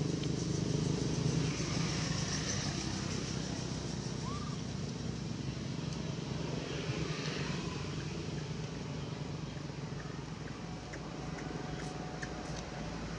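A motor vehicle's engine hum, strongest in the first second or two and then fading into a steady low rumble.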